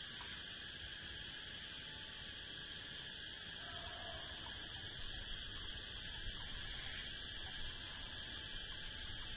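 A steady, high insect chorus from crickets or cicadas, unbroken throughout.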